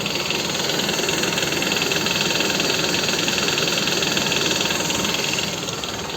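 Toyota Estima's 2AZ-FE 2.4-litre engine running, heard from below at the front of the sump, with a chattering, tapping knock. The mechanic suspects the balance shafts. The sound eases slightly near the end.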